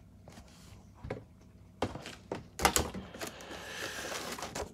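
Handling a plastic model kit in its cardboard box: a few light knocks, then from about two and a half seconds in a crinkling rustle of the paper instruction sheet and clear plastic sprue bags being lifted.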